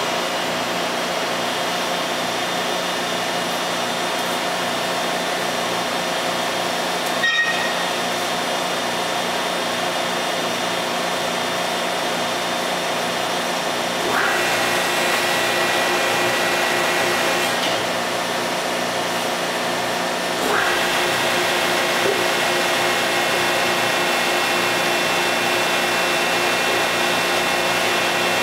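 Hydraulic power unit of a 1,018-ton up-acting press running steadily: the electric motor and pumps make a hum with several fixed tones. About halfway through a higher whine comes in and the level rises, drops away a few seconds later, then returns louder for the last third as the press closes and builds tonnage. A single short click sounds about seven seconds in.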